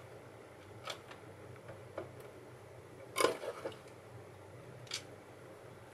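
Light clicks and knocks of a variable-frequency drive's plastic housing and circuit board being handled on a workbench: a few scattered taps, the loudest about three seconds in.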